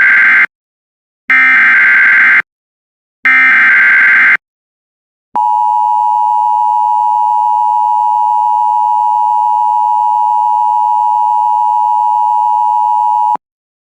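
Emergency Alert System header: three short bursts of screeching digital data tones, then the steady EAS attention signal held for about eight seconds and cut off abruptly. It announces an incoming alert, here a severe thunderstorm warning.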